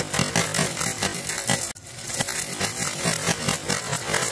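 Marbles rolling down a grooved wooden slope and dropping off its end into a plastic tub and tray: a dense, rapid clatter of clicks and rattles on wood and plastic. It breaks off for a moment a little under two seconds in.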